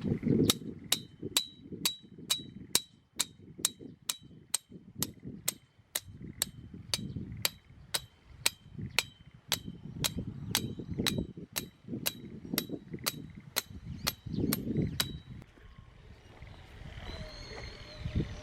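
Light metallic clicks, each with a short ring, about two and a half a second and very even, stopping about fifteen seconds in. Wind rumbles on the microphone underneath.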